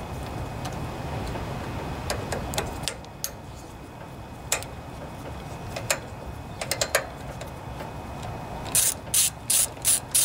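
Hand ratchet and socket turning out ignition-coil mounting bolts: scattered clicks, then near the end a run of sharp ratchet clicks, about three a second, over a steady low background rumble.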